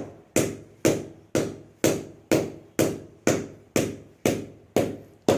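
A cricket ball bounced steadily on the face of a new English willow cricket bat, with a sharp knock about twice a second.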